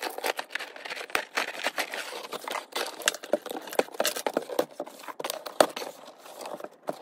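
Sped-up sound of a cardboard shipping box being opened: a key slitting the packing tape, the tape being peeled off, and cardboard scraping and crinkling in a fast run of clicks and rustles.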